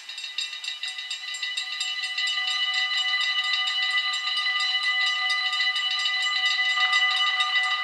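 Warning bells of a Dutch automatic half-barrier (AHOB) level crossing ringing rapidly and continuously, several bells at different pitches sounding together. The ringing swells over the first couple of seconds, and another bell tone grows stronger near the end. They signal an approaching train before the barriers lower.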